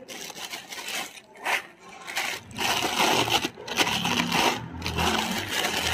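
Plastic packaging crinkling and rustling as a camera body is unwrapped by hand from a thin plastic bag, tissue paper and bubble wrap: irregular crackles that get busier about halfway through, with a low handling rumble under them.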